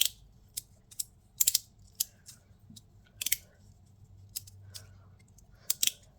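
A small handheld fidget slider (a glow derby) being slid back and forth by hand, giving sharp clicks at irregular intervals, some coming in quick pairs or triples.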